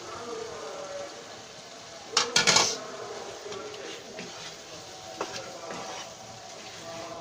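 Cookware clinking and scraping as raw chicken is added to a pan of frying spice masala, with one loud clatter about two seconds in.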